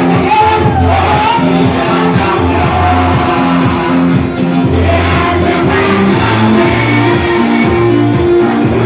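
Live gospel worship music: a band playing held bass notes and chords, with singing over it.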